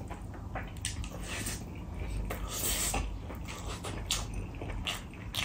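Close-up eating sounds: chewing and mouth smacking over a mouthful of rice and curry, with scattered sharp clicks and a short hissy sound about two and a half seconds in.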